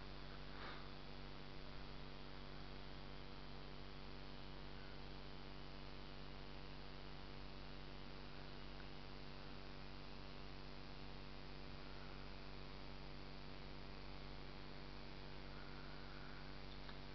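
Faint, steady electrical hum with many evenly spaced overtones under a constant hiss, with one brief soft click under a second in.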